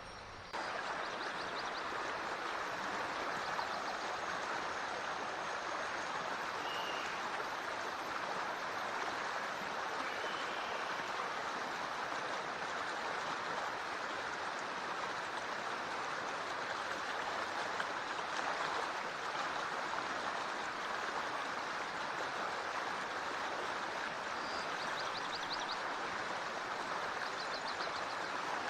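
Forest stream running over rocks: a steady, even rush of flowing water that comes in suddenly louder about half a second in. A few faint, short high chirps sound now and then above it.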